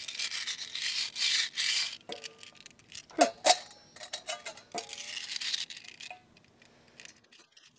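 Toothbrush scrubbing small metal winch parts in a metal bowl of gasoline, a brisk bristly rasp, broken up by several sharp clinks of the parts knocking against the bowl a few seconds in before the scrubbing resumes.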